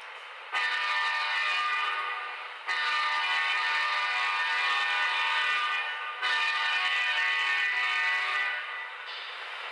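The sound-equipped HO scale Union Pacific AC6000 model locomotives sound a multi-note diesel air horn three times as the lash-up departs. The blasts are held, a short one then two longer ones, over the steady hum of the model's diesel engine sound.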